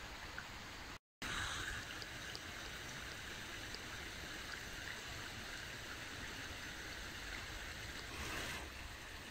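Steady rush of running water, broken by a short gap about a second in.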